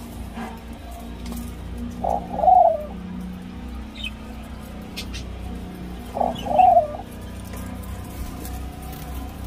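Senegal dove × ringneck dove hybrid giving its nest coo twice, about four seconds apart, while crouched in the nest. Each coo is short, with a louder second part. A steady low hum runs beneath.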